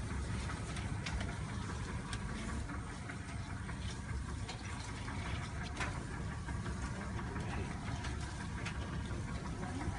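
Boat engine running steadily with a low rumble.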